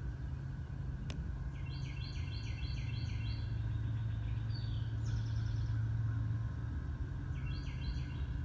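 A low, steady churning hum from under a house, of unknown source, growing a little louder in the middle. A bird sings a quick run of about half a dozen repeated notes over it, and again near the end.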